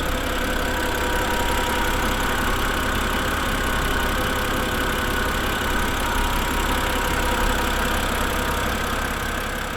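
BMW N52 straight-six idling steadily, with a little valve noise still coming from its hydraulic lifters; fresh oil and a lifter additive have quieted the tick but not cured it.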